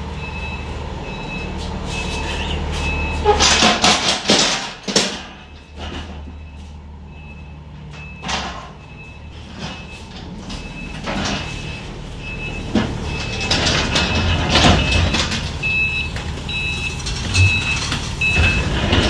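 Unloading at a truck trailer: a low steady engine hum with a short high warning beep repeating a little under twice a second. Over it come bursts of loud clattering and banging, first a few seconds in and again past the middle.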